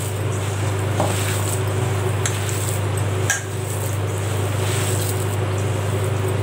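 Hands squishing and mashing soaked flattened rice (aval) with spices in a steel bowl, with a few light clicks against the bowl. All of it sits over a steady low hum.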